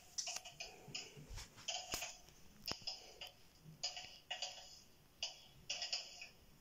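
Clock ticking: a run of faint, sharp ticks at an uneven pace.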